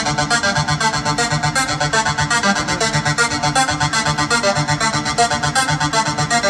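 Electronic music with a fast, even pulse of synthesizer notes over a steady bass line, played loud through a 4acoustic outdoor line-array PA with subwoofers during a sound-system demonstration.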